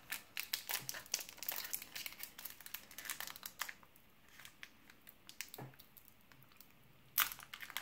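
Crinkling and crackling of a brittle trading-card booster pack wrapper as it is handled and its sealed top seam is pinched and worked open, with dense crinkles for the first few seconds, quieter stretches after, and a louder crackle about seven seconds in.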